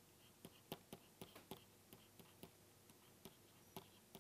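Near silence: quiet room tone with faint, irregular small clicks, about two or three a second.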